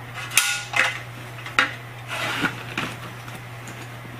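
Black Diamond Deploy 7 avalanche shovel, aluminium blade and shaft, handled and knocked together: a few sharp metallic clacks in the first second and a half. Then rustling with softer knocks as the shovel is pushed down into a backpack.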